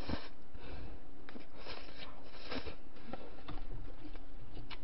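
Close-miked eating: a spoonful of gyudon, beef on rice, being chewed, heard as short, irregular mouth noises.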